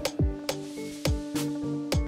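Background electronic music with a steady beat: deep kick drum hits and sharp higher percussion over held synth notes.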